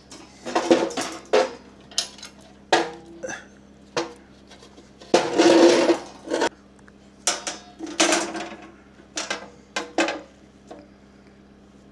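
Steel body panel pieces being handled: a series of metallic knocks and clanks with a short ring after each, and a longer, louder scrape of metal on metal about five seconds in.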